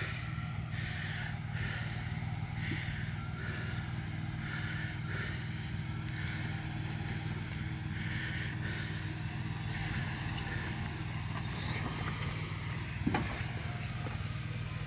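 Jeep Wrangler YJ engine running steadily at low revs as the Jeep crawls slowly down a rocky trail. A single thump sounds about 13 seconds in.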